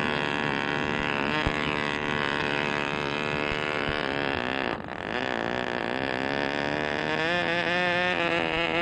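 Small two-stroke glow engine of a radio-control model airplane running with a steady buzz. It dips briefly about five seconds in, then runs on with a slightly wavering pitch.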